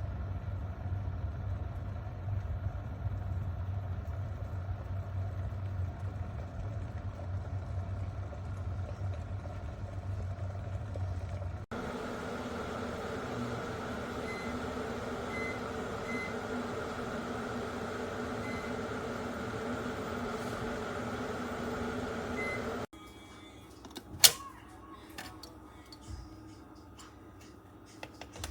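Electric kettle heating water: a steady low rumbling hum, then after a cut a steadier hum with a few faint high beeps. Near the end it goes quieter, with a couple of sharp clicks, the loudest about 24 seconds in.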